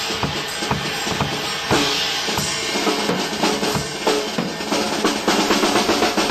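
Acoustic drum kit played: a steady beat of bass drum and snare under a wash of cymbals. About halfway in it breaks into a run of fast, evenly spaced strokes.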